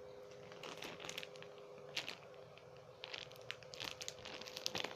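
Plastic crinkling as squishy toys in their plastic wrappers are picked up and handled, in irregular crackles that get busier about three seconds in.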